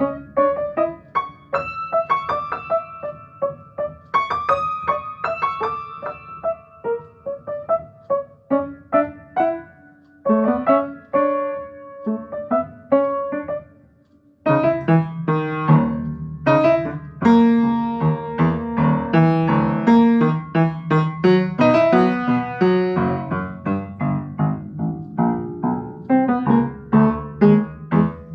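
Solo piano improvisation: scattered single notes and light chords in the middle and upper range, a brief pause about halfway, then fuller, louder chords over a deep bass.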